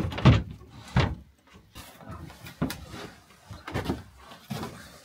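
Scattered knocks and bumps of gear and fittings being handled in a small enclosed room, loudest in the first second, then a few sparser thuds.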